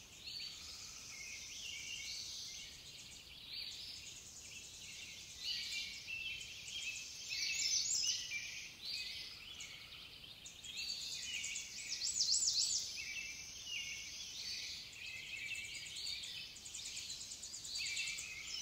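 Several songbirds chirping and trilling over one another, a continuous mix of short high-pitched calls and fast trills.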